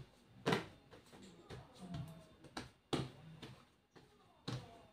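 Hands slapping and patting bread dough flat on a tabletop: four short slaps, two close together in the middle, with softer pressing sounds between.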